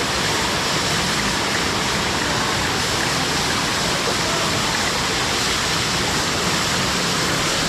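Waterfall: water falling and pouring over rocks in a loud, even rush that never lets up.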